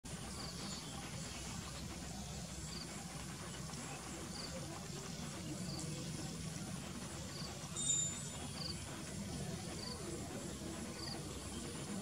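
Outdoor ambience: a short high chirp repeats every one to two seconds over a low, steady background rumble. A brief high whistle about eight seconds in is the loudest sound.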